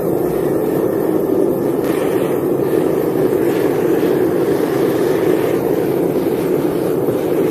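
Metal-melting furnace running with a loud, steady rushing noise from its fired air blast, heating a crucible of molten aluminium.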